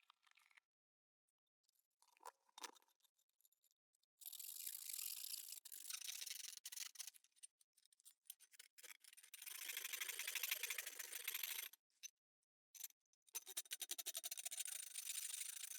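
Rapid scraping strokes on hard plastic, a tool trimming a plastic pickup riser to fit, in three spells with short pauses between them.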